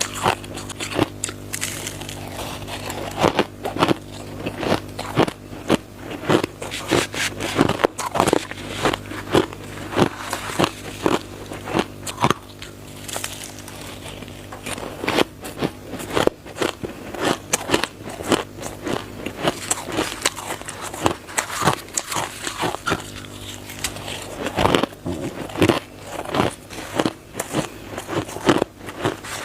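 Crisp, dry crushed shaved ice being bitten and chewed: rapid, irregular crunches, a few each second, easing off briefly about halfway.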